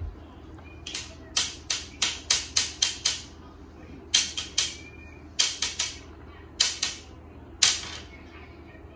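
A squeezed plastic tube of Morinaga sweetened condensed milk sputtering as milk and trapped air spurt from its nozzle. There are about seventeen short hissing spurts in quick runs of three to seven.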